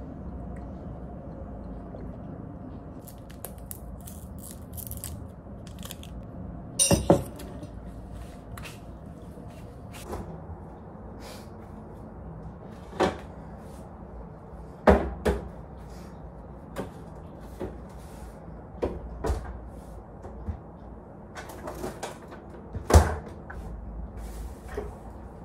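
Kitchen handling sounds: a scattering of knocks and clunks as the fridge door and cupboards are opened and shut and things are set down on the counter, over a low steady hum.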